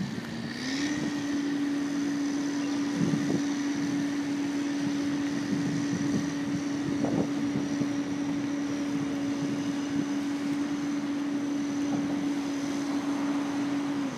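Crane's engine revving up about half a second in and then holding a steady, raised pitch, dropping away at the end.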